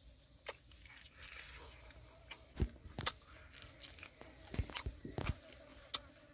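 A person biting and chewing crispy fried water snake close to the microphone: a scatter of sharp crunches and crackles, the loudest about three seconds in.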